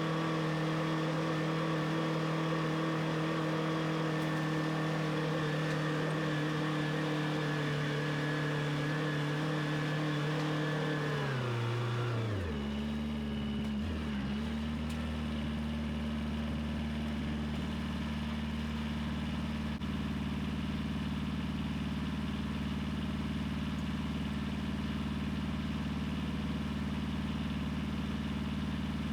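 An engine running steadily at higher speed, then throttled down about twelve seconds in and settling to a steady, lower idle.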